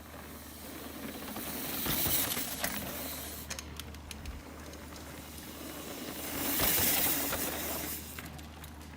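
Mountain bike tyres rolling and skidding over a loose dirt trail: a hissing rush swells and fades twice, as if two bikes pass one after the other, with a few light clicks in between.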